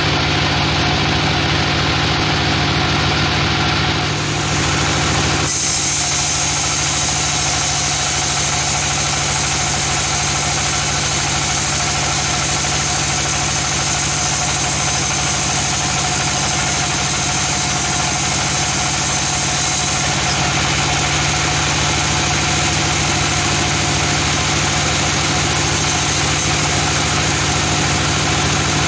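Sawmill running with a steady mechanical drone. About five seconds in, the blade starts cutting through a teak log, adding a bright hissing rasp that stops about fifteen seconds later, leaving the machine running on its own.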